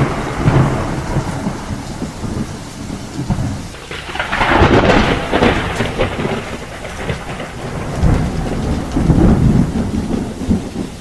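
Steady rain with rolling thunder, the rumble swelling louder about four seconds in and again near the end.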